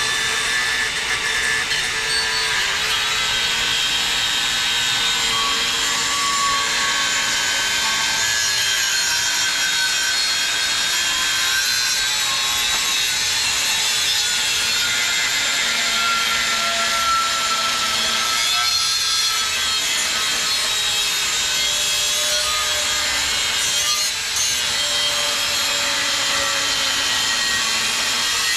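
Cordless angle grinder's cut-off wheel cutting through the steel shell of a small hermetic refrigeration compressor, a continuous gritty grinding with a motor whine that drifts in pitch as the load changes.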